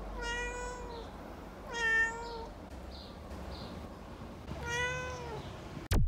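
Tabby cat meowing three times, each a drawn-out meow, while watching birds through a window.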